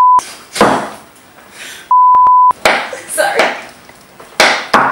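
Censor bleep: a loud, steady 1 kHz tone dubbed over the soundtrack twice, a short one ending just after the start and a half-second one about two seconds in, blanking out the speech beneath it, with talking between the bleeps.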